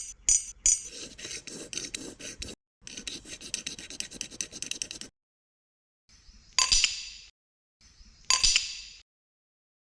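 Scraping, rasping work on metal parts, cut off abruptly about halfway through. Two sharp metallic strikes follow, each ringing briefly before dying away.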